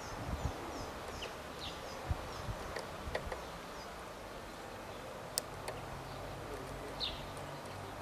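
Small garden birds chirping in short, high notes, with a few sharp taps as a blue tit pecks at seed on a wooden feeder tray.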